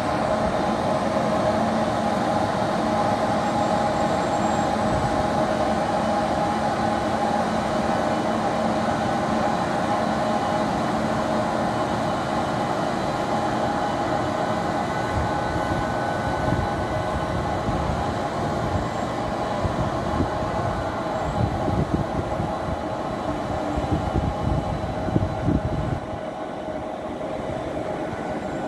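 WAP-7 electric locomotive running past slowly at close range: a steady hum of several tones from its electrics and cooling blowers over wheel-and-rail rumble. Uneven low rumbling and knocks come in from about halfway through, and the sound drops a little near the end as the locomotive moves on and the coaches follow.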